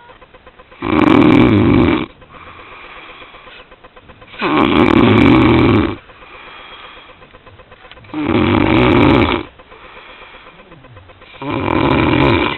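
A person snoring heavily in sleep: four loud snores, each a second or more long, coming about every three and a half seconds, with softer breathing in between.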